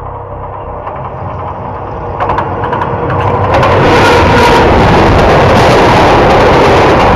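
Diesel locomotive and its train approaching along the track and then running directly overhead, heard from between the rails. A low engine rumble grows louder with rapid clicking of wheels on the rails, and about three and a half seconds in it becomes a loud, steady din as the locomotive and carriages pass over.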